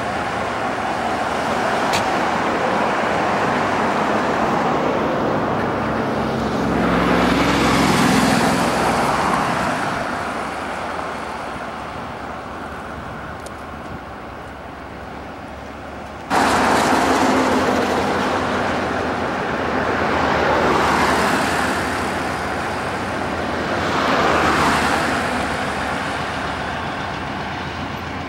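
Highway traffic: cars and trucks passing one after another, each swelling and fading away. About halfway through the sound cuts off abruptly to a louder stretch of the same kind of passing-vehicle noise.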